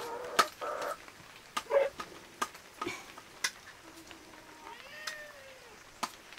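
Domestic cat meowing, with one long meow about five seconds in that rises and falls in pitch, amid scattered clicks of dishes and utensils.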